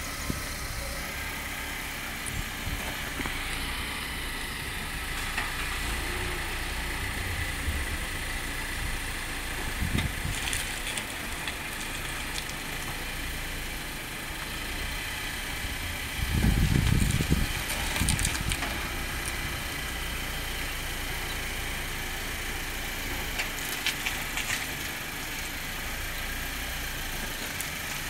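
Nissan Juke's engine idling and creeping at low speed as the car is eased back and forth into a parking space, a steady low running sound. A briefly louder low rumble comes about 16 seconds in.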